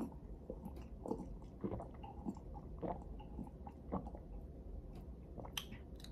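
A person drinking a carbonated drink from a glass in a series of soft gulps, about two a second, for some four seconds, followed by a few faint clicks near the end.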